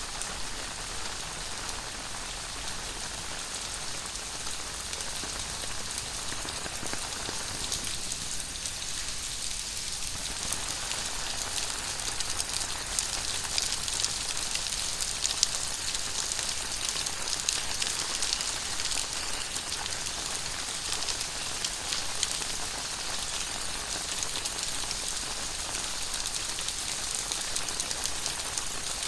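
Very heavy tropical rain falling steadily, a dense hiss full of fine drop ticks. It grows a little louder about halfway through.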